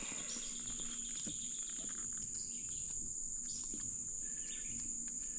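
A chorus of insects droning steadily in one high, even tone, with a few faint small knocks now and then.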